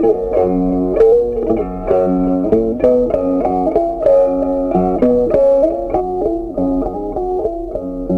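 Background music: a plucked guitar melody over a bass line, with a steady beat.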